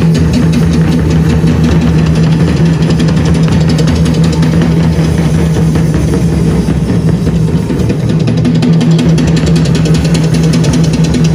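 Live drum music: parai frame drums and a drum kit playing fast together over a held low note.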